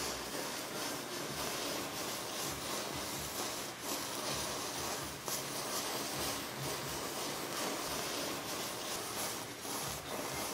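Rows of wooden matchsticks catching fire one after another and burning: a continuous hiss with small, irregular crackles as the match heads flare.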